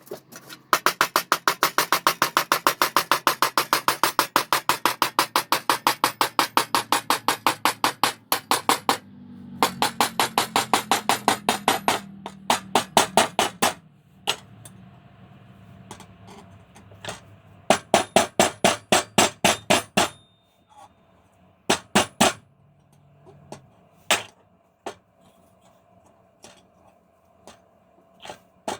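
Hand hammer striking hot steel on an anvil while forging a small bolt: fast, even runs of blows at about five a second, the first lasting some eight seconds. Shorter runs and single, spaced blows follow, with the anvil ringing faintly between them.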